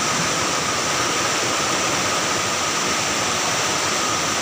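Steady rushing of a swollen, fast-flowing flood river running bank-full.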